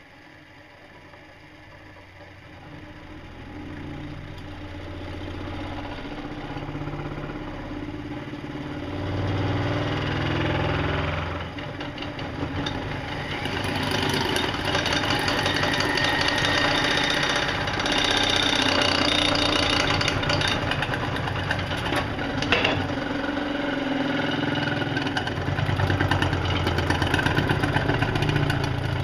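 Electric motor spinning a heavy vinyl record up to high speed, getting steadily louder over the first ten seconds or so and then running hard with a dense rattle. A single sharp knock comes about two-thirds of the way through.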